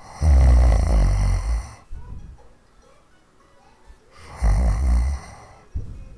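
A woman snoring heavily: two long snores about four seconds apart, each lasting about a second and a half, with a short snort-like sound near the end.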